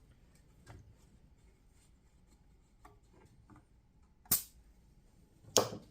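Two sharp clicks about a second apart near the end, with a few faint ticks before them: hand tools and parts being handled on a workbench.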